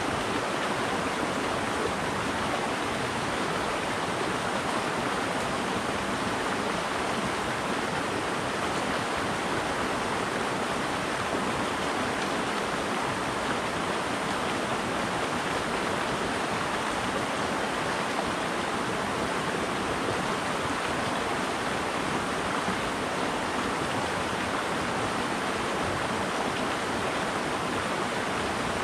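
Creek water rushing over rocks in riffles and small cascades, a steady, unbroken rush.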